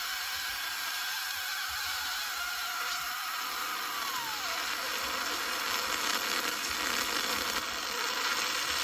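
Steady whirring hiss, with a faint tone that slides down in pitch about four seconds in.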